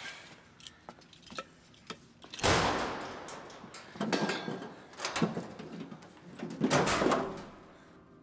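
Metal school locker and its padlock being handled and forced: scattered light metallic clicks and rattles, with two louder rattling clangs, about two and a half seconds and about seven seconds in.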